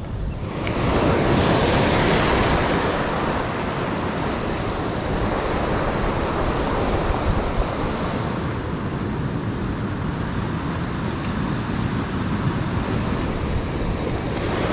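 Ocean surf breaking and washing over a stony beach, swelling about a second in and then running steadily, with wind buffeting the microphone.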